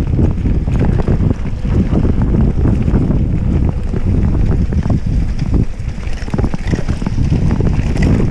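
Wind blasting the microphone of a GoPro Hero 5 Session on a Polygon Siskiu D5 mountain bike during a downhill trail run. Tyres rumble over the dirt and the bike rattles and knocks over the bumps.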